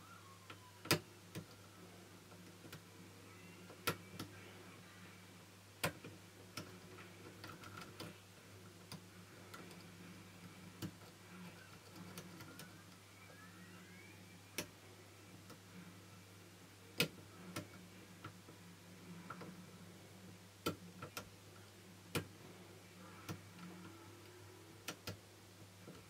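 Metal lock pick clicking and scraping against the pins of a double-sided brass Securit cylinder lock with standard pins, worked under a tension wrench. Sharp, irregular clicks come every second or two over a faint steady hum.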